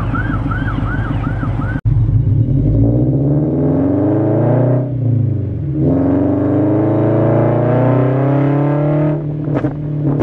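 Scion FR-S's flat-four engine pulling hard, its pitch rising, dropping at a gear change about five seconds in, then rising again; near the end a rapid string of sharp exhaust pops and crackles as the throttle closes, from its pop-and-bang backfire tune. Before that, for about two seconds, a repeating warbling tone sits over the engine until it cuts off abruptly.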